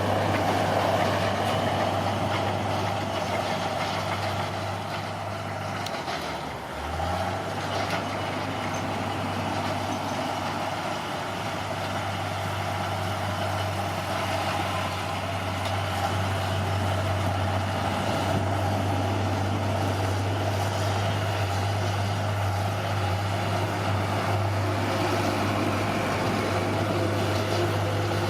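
Heavy diesel engine of an earthmoving machine running steadily under work, its note dipping briefly and picking up again about six to seven seconds in.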